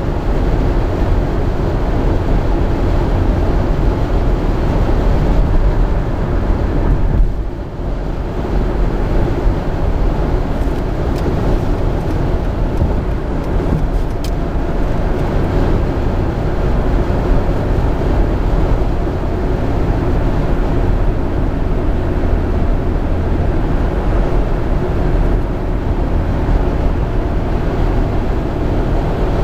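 Steady road and engine noise inside a Jeep Grand Cherokee's cabin while cruising on the highway, dipping briefly about seven and a half seconds in.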